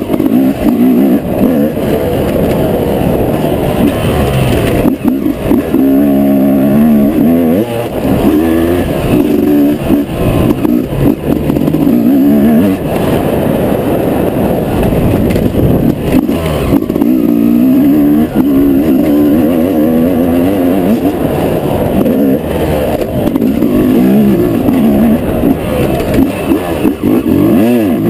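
Yamaha YZ250 single-cylinder two-stroke motocross engine, heard close up on board while riding. It revs up and down over and over as the throttle opens and closes through the corners and straights.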